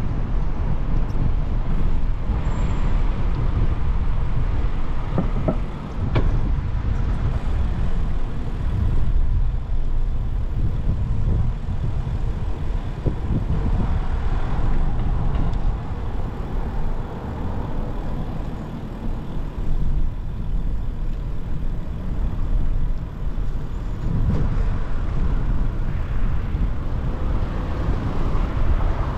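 City street traffic: cars and buses passing, heard as a steady noisy rumble with heavy low end that swells now and then.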